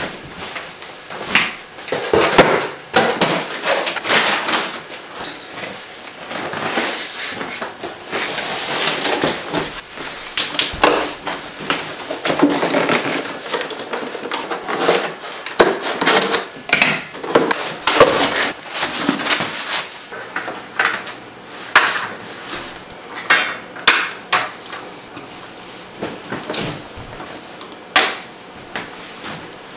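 Solar panel being unboxed: cardboard shipping box scraping and rustling as it is opened and the panel is slid out, with irregular knocks and clatters. The handling is busiest for most of the stretch and thins to a few separate knocks near the end.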